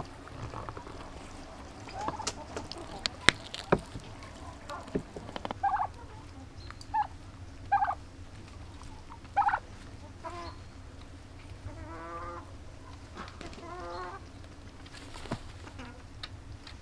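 Domestic white turkeys calling: several short yelps, then two rapid rattling gobbles a little past the middle. A few sharp clicks or knocks in the first few seconds are the loudest sounds.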